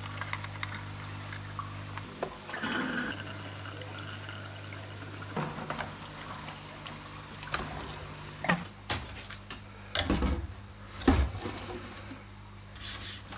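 Water trickling and splashing from the disconnected hoses and valve adapter of an EHEIM Professional 4+ canister filter, under a low steady hum. In the second half come several knocks and clunks as the wet filter is handled.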